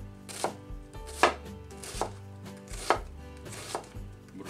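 Chef's knife dicing an onion on a wooden cutting board: five sharp chops, a bit under one a second, each blade striking through the onion onto the board.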